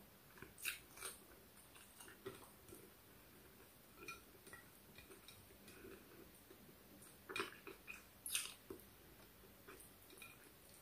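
Faint chewing and mouth sounds of someone eating rice and fish. A few short smacks come about a second in and again around the eighth second.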